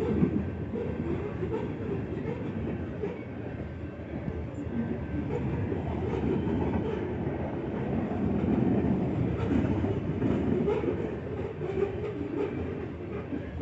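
Grain train's freight cars rolling past with a steady rumble and wheel clatter over the rail joints.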